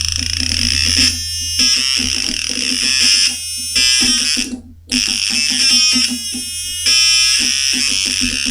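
Home-built electronic sound circuit on a freshly soldered circuit board, switched on and working: a harsh, buzzy electronic tone whose pitch changes several times, with a brief cut-out a little past halfway.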